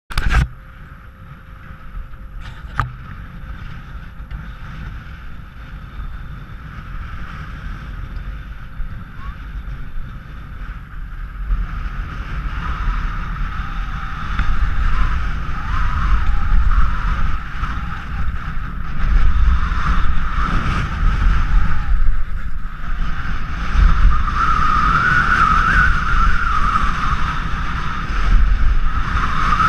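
Wind buffeting a body-mounted action camera's microphone, with skis hissing and scraping over groomed snow during a downhill run. It gets louder from about halfway through as speed builds. At the very start there is a brief handling knock as a glove covers the camera.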